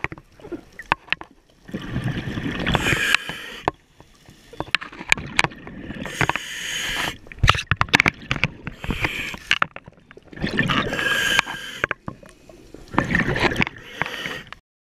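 Scuba regulator exhalations heard underwater: bursts of bubbles of about a second and a half each, five times at intervals of three to four seconds, with sharp clicks in between. The sound cuts off suddenly near the end.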